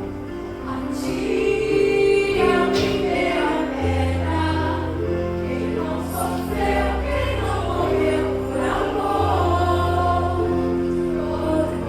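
Music with a group of voices singing over long held bass notes that change every few seconds.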